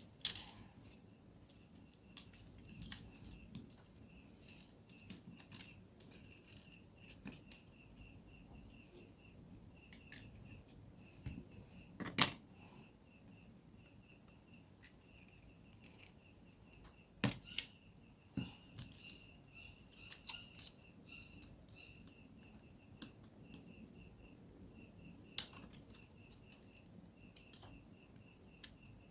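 Scattered sharp clicks and taps of small repair tools against the plastic and metal parts of a Samsung Galaxy A03s phone being disassembled, a few much louder than the rest.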